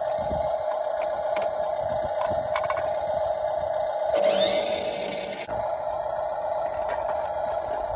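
Steady electric hum from a motorized remote-control toy garbage truck, with a few small plastic clicks as toy bins are handled and a brief louder rush with a rising sweep about four seconds in.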